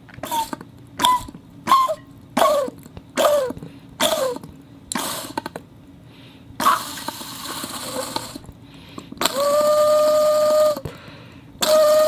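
A homemade whistle squeaks six times in quick succession, each squeak sliding down in pitch. Then comes a breathy hiss, and then two long, steady whistled tones over an airy rush of blowing.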